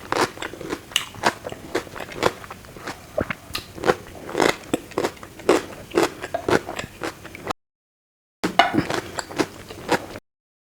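Close-miked mouth sounds of a person chewing and crunching food, with sharp, irregular crisp bites and wet chewing. The sound cuts to dead silence for about a second, resumes briefly, then cuts out again near the end.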